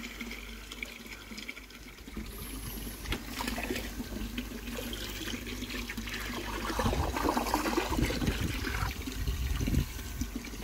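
Water running and splashing into a koi pond, growing louder in the second half.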